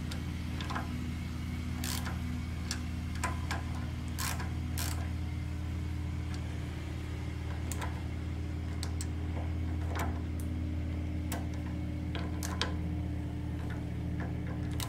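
Small socket ratchet clicking in short, irregular strokes as the 8mm nuts on an alternator's rear terminals are given a light tightening. A steady low hum runs underneath.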